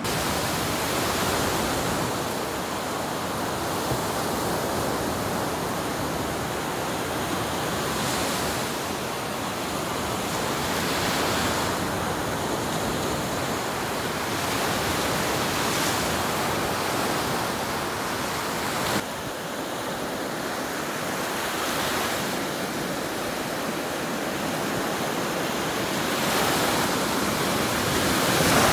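Waves breaking and washing onto a beach: a steady hiss of surf that swells and eases every few seconds. A short tick and a small drop in level come about two-thirds of the way in.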